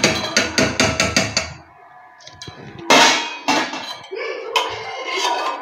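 Stainless steel kitchen utensils clinking: a steel spoon knocked rapidly against a small steel cup, about six or seven taps a second for the first second and a half, then a few separate louder clangs of steel utensils being set down and handled.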